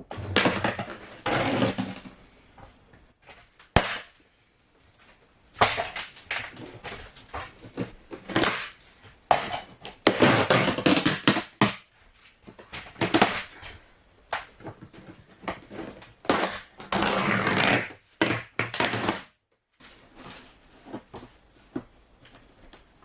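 Demolition work inside a caravan: irregular bursts of tearing, crunching and scraping as wall panelling and framing are pried off and broken out, with a few sharp knocks.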